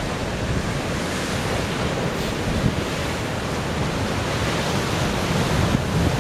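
Ocean surf breaking and surging over a rocky shore: a steady rush of churning white water, with wind buffeting the microphone.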